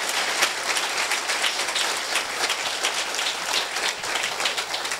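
Audience applauding: many people clapping at once, steady and even.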